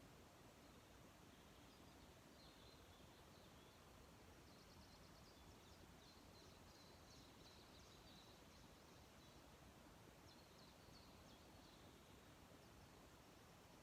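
Faint birdsong against near silence: scattered high chirps, with a quick trill of rapid notes about four and a half seconds in and more chirping a few seconds later.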